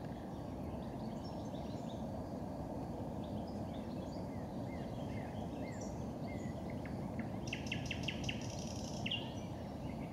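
Small birds chirping with short, high notes over a steady low background rush of open-air noise, with a quick run of rapid clicking notes about three quarters of the way through.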